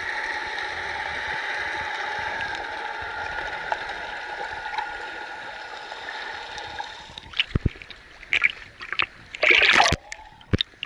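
Underwater sound from an action camera held just below the sea surface: a steady, muffled water hiss. About seven seconds in it gives way to a run of splashes and sloshing against the camera, loudest near the end.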